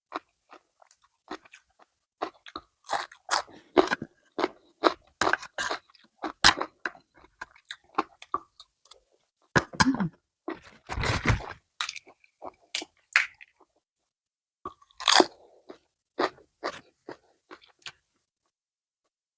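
Close-up mouth sounds of someone eating spicy golden apple snail salad with fresh vegetables: repeated crisp crunching and chewing in quick irregular bites, with a brief lull about two-thirds of the way in. The crunching stops about a second before the end.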